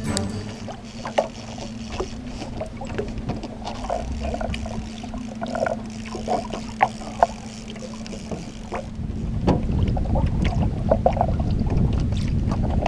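A small fishing boat's motor humming steadily while trolling, with scattered clicks and knocks of fishing gear being handled in the aluminium boat. About nine seconds in, wind rumble on the microphone rises and covers the hum.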